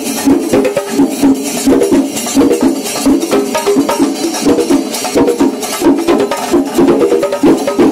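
Traditional festival percussion music: a dense, rapid run of sharp drum strokes and jingling under a pitched melody.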